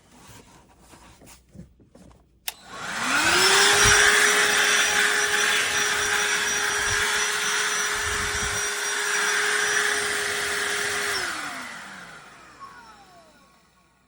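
DeWalt DCV501HB 20V cordless handheld vacuum switched on with a click: the motor spins up to a steady whine with rushing air, runs for about eight seconds, then is switched off and winds down with a falling pitch. Light handling noises come before it starts.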